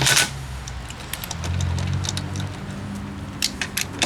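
A cordless impact wrench fires a short burst right at the start. Scattered clicks and light rattles of the tool being handled follow over a low steady hum.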